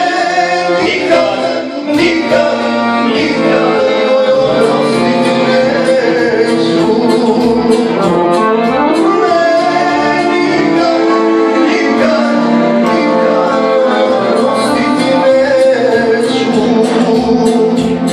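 A man singing into a microphone with live instrumental accompaniment, one continuous song.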